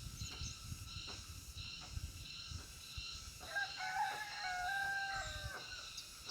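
A rooster crowing once, one long call of about two seconds held on a few steady pitches, over a steady high-pitched background hum.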